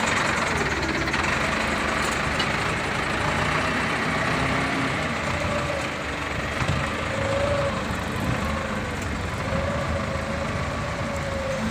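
Automatic horizontal baler running, a steady mechanical drone of its motor and hydraulics with faint wavering tones over it.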